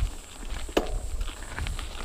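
Mountain bike rolling fast down a gravel trail: tyres crunching over loose stones and the bike rattling, over a steady wind rumble on the camera microphone. One sharper clack with a short ring comes near the middle.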